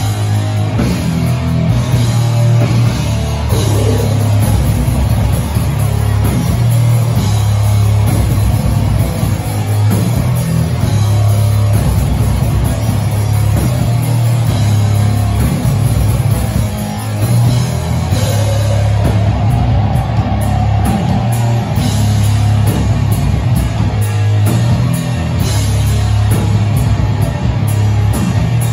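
Death metal band playing live: distorted electric guitars, bass and drums, loud and continuous, with a heavy, booming low end as heard from within the crowd.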